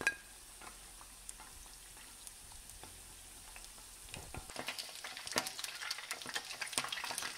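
Chicken pieces shallow-frying in hot oil in a pan: a soft, steady sizzle that turns into louder, denser crackling about halfway through.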